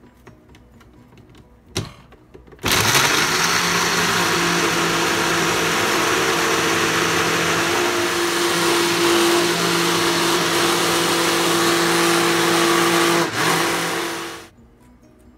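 Ninja countertop blender's motor running steadily at full speed, blending frozen strawberries, pineapple, kale and ice into a smoothie; it starts abruptly about three seconds in and cuts off near the end. A single sharp click comes shortly before it starts.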